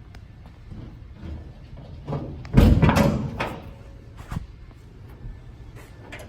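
Steel hood of a 1969 Camaro being worked on new billet hood hinges: a few light clicks, then a loud metal clunk with a brief rattle about two and a half seconds in, and another sharp click a little after four seconds.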